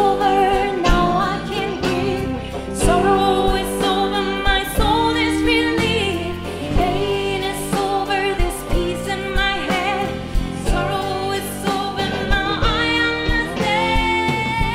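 A woman singing lead vocals live with a band accompanying her, the drums keeping a steady beat under held, sung notes.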